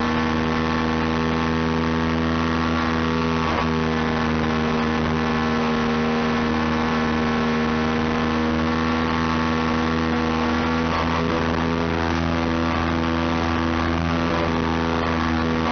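Electric motor and propeller of an FPV model aircraft running steadily at cruise power, heard from on board: a constant whine over a rush of air.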